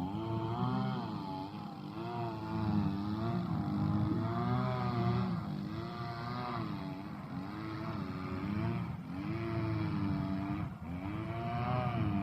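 Tractor engine running under load, its pitch dipping and rising again about once a second.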